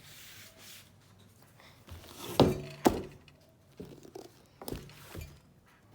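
A few short knocks and clicks from handling the opened pull-string talking doll and its parts, the two loudest close together about two and a half seconds in.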